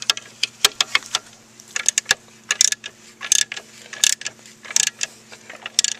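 Craftsman hand ratchet clicking in short bursts as it is swung back and forth, tightening the skid plate bolts on an ATV.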